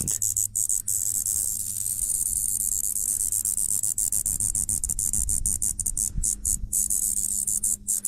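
Male Olympic scrub cicada (Diceroprocta olympusa) giving its loud, steady high-pitched buzz, broken by brief, irregular gaps; only male cicadas make this sound.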